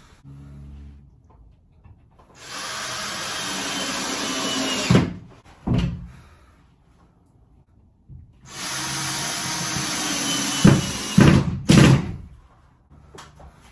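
A cordless drill driving screws through drywall into the ceiling, in two runs of about two and a half seconds each. Each run ends in sharp knocks, and a few more loud knocks come a second or so after the second run.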